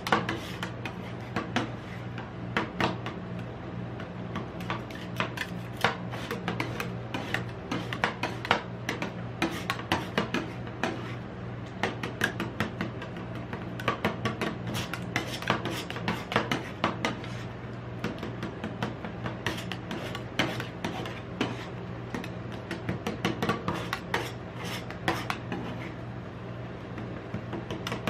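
Two metal spatulas chopping and scraping ice cream on a metal rolled-ice-cream cold plate: rapid, irregular taps and scrapes of metal on metal, over a steady low hum.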